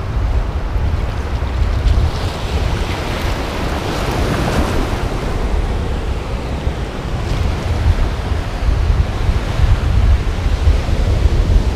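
Shallow ocean surf washing and breaking around a wader's legs, with wind rumbling on the microphone.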